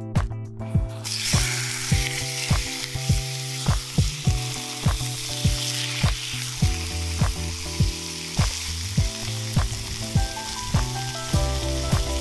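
Sliced beef frying in a hot pan: a sizzle that starts suddenly about a second in and then runs steadily, over background music with an even beat.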